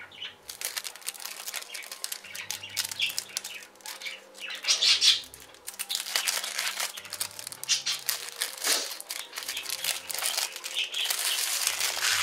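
Clear plastic wrapping on a pack of vinyl decal stickers crinkling and crackling as it is handled and pulled open, loudest about five seconds in.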